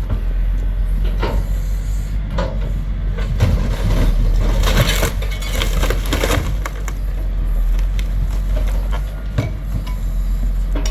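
An old boat's hull being crushed and broken apart, with repeated cracking and splintering crunches over the steady drone of a heavy machine's engine. The hull is resisting being broken up.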